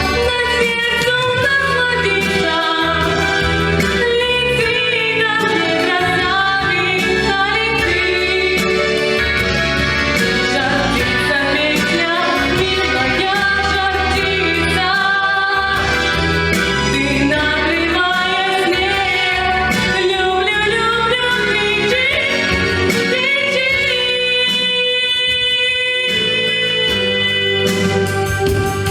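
A woman singing a song over a recorded instrumental backing track; about 24 seconds in the voice pauses and the accompaniment carries on with steady held notes.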